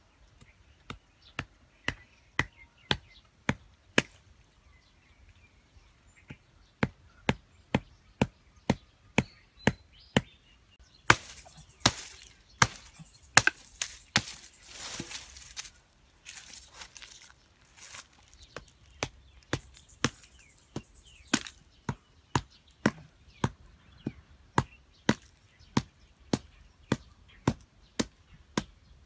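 A machete striking a thin wooden stake to drive it into the ground. The sharp, even knocks come about two a second in runs, broken by a couple of short pauses.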